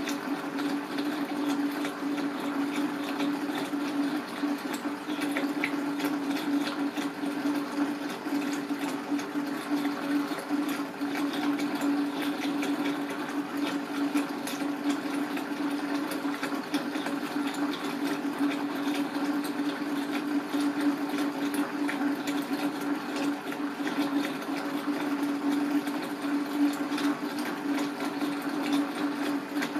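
A small motor running with a steady, unchanging hum over a faint hiss and scattered faint clicks.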